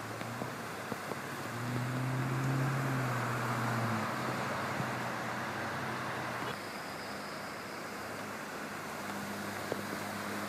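Cars and trucks driving through deep standing floodwater, engines running under the rushing hiss and splash of spray thrown up by their tyres. One vehicle passes loudest about two to four seconds in.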